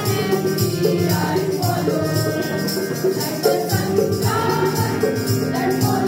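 A group of school students singing a song together into microphones, over a steady rhythmic percussion beat.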